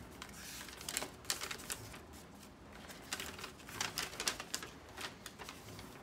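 A folded paper instruction leaflet being unfolded and handled, crinkling with irregular crackles.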